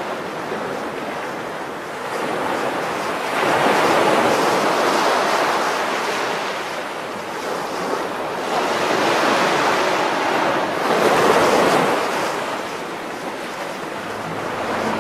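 Sea waves washing in, rising and falling in slow surges, loudest twice.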